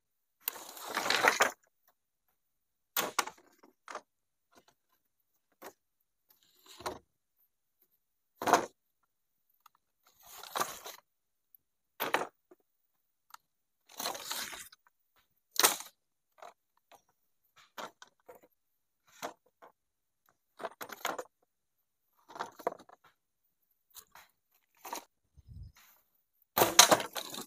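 Scattered knocks, clicks and short scraping sounds from shelter materials being handled and fitted, one every second or two with silence between; the loudest come near the start and near the end.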